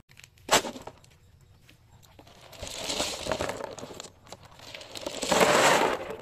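Balisaha cockle shells clattering against one another and against a plastic basin as a mesh bag of them is handled and tipped out. The clatter is loudest near the end, with a single sharp knock about half a second in.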